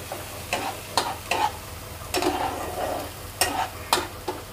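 Flat spatula scraping and knocking against a nonstick kadai as thick tomato-paste masala is stirred and fried down in oil, sizzling. The strokes come in quick runs, with a longer scrape about two seconds in.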